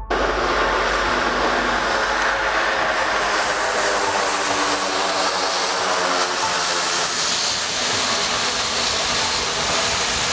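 Small aircraft's engines running: a loud, steady rush of noise that cuts in abruptly.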